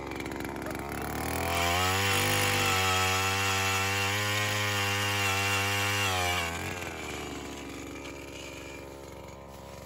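Power ice auger drilling through lake ice. The motor speeds up over the first couple of seconds, runs steady at full speed for about five seconds, then winds down and keeps running lower and quieter.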